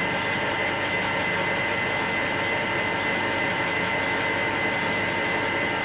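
Metal lathe running steadily as a turning tool cuts a model traction engine's cylinder end plate, with a constant high whine over the machining noise.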